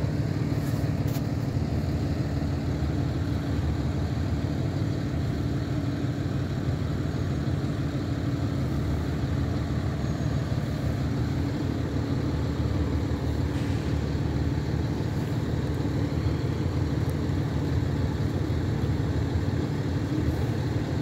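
Several school bus engines idling together, making a steady low drone with an even hum above it.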